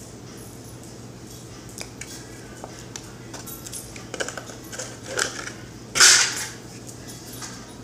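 Small clicks and scrapes from handling a plastic frosting tub at a kitchen counter, busier in the second half, with one louder short noisy burst about six seconds in.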